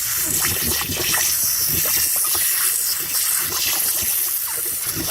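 Water hissing and sputtering out of a ruptured spa pipe under a pressure test, with many small crackling splashes. This is the leak itself, at the air-induction side of a spa jet's venturi fitting.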